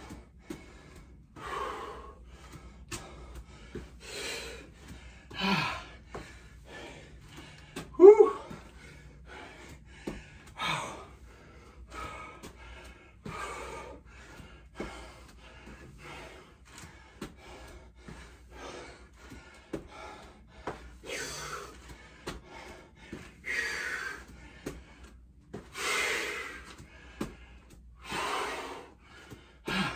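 A man breathing hard and gasping from exertion, with heavy breaths every two to three seconds. About eight seconds in comes a short, loud grunt.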